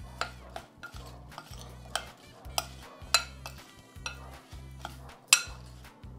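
Metal spoon stirring diced apples with ground cinnamon in a glass bowl: soft scraping of the apple pieces with a scatter of clinks of spoon on glass, the sharpest about five seconds in.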